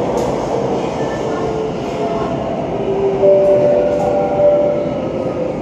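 Inside a Bombardier MOVIA C951 metro car running on the line: a steady rumble of wheels on track, with several whining tones from the traction motors that step and shift in pitch as the train slows for the next station.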